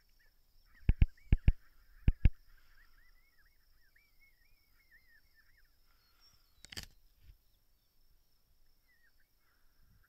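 Six sharp knocks in quick pairs about a second in, with a single click later, from handling the thermal rifle scope while its view is changed. Faint bird chirping runs underneath throughout.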